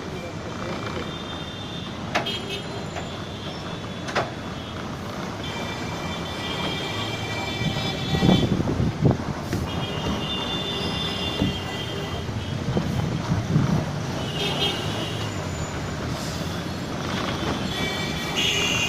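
Heavy city road traffic: engines running and vehicles passing, with horns sounding several times. A heavier vehicle rumbles by in the middle.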